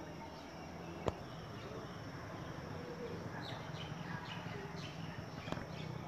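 Outdoor ambience with a low steady hum and a few short bird chirps in the second half, broken by two sharp clicks, one about a second in and one near the end.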